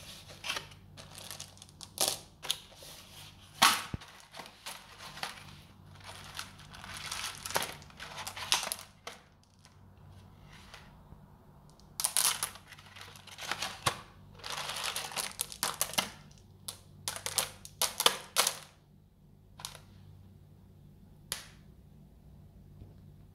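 Meat grinder crushing jelly candies: spells of crackling and crunching with sharp clicks, pausing around the middle and again near the end. A faint steady low hum runs underneath.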